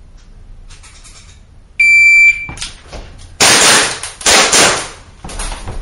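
Competition shot timer's electronic start beep, about half a second long, then several gunshots fired in quick succession, each ringing with indoor range reverberation.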